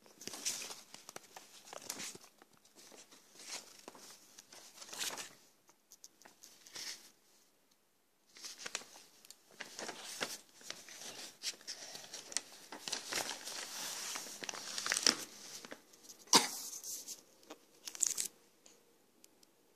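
Sheets of paper rustling and crinkling as they are handled and turned, in irregular bursts with a lull about seven seconds in and sharper crackles near the end.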